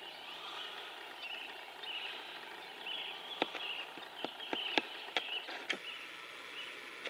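Antlers of two sparring bull elk knocking together: about half a dozen sharp clacks, irregularly spaced, from about three seconds in.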